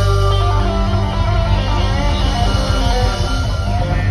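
Live blues band playing: blues harmonica and electric guitar over bass and drums.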